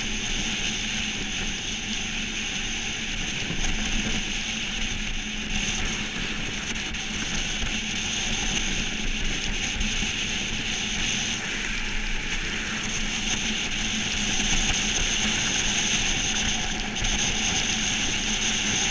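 Monotype XV iceboat sailing at speed over lake ice: a steady rushing noise from the runners on the ice and the wind over the boat, with a low hum running through it.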